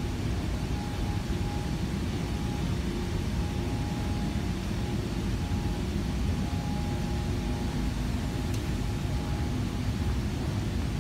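Steel cord belt conveyor running: a steady, heavy rumble of the belt travelling over its troughing idler rollers, with a faint whine that comes and goes.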